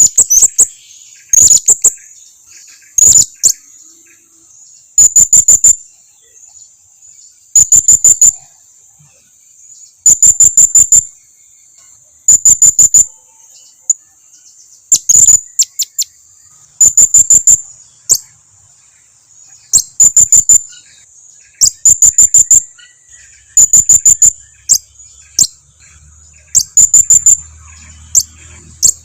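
Blue-crowned hanging parrot (serindit) lure call: bursts of four to six sharp, very high chirps repeating every couple of seconds, over a steady high background drone.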